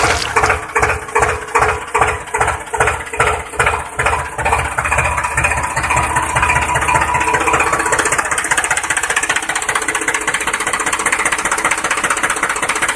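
Tractor engine chugging in a regular knock of about three beats a second, then settling into a steady, even running drone about five seconds in.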